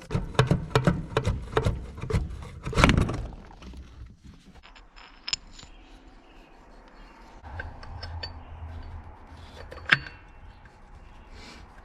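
Metallic clicking and clattering of hand tools and parts being handled during engine work, a quick run of knocks over the first three seconds, then quieter, with one sharp click near the end.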